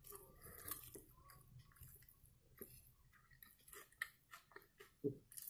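Faint close-up chewing of a mouthful of food, with a few soft clicks scattered through, the last and loudest about five seconds in.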